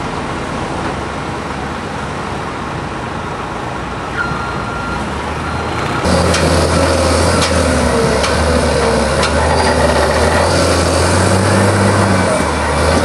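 Diesel engines of heavy crawler machines running steadily, with a brief high tone about four seconds in. About six seconds in the sound jumps to a louder, deeper engine drone, with a few sharp metallic knocks.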